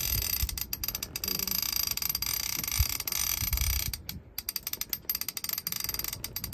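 Fishing reel ratcheting rapidly as a heavy fish pulls line against the drag, with a brief break about four seconds in.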